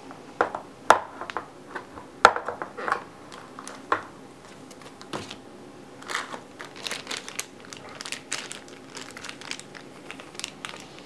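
Plastic packaging being handled: a few sharp clicks and knocks from the rigid plastic box and its insert tray, then a clear plastic bag of earphones crinkling from about halfway on.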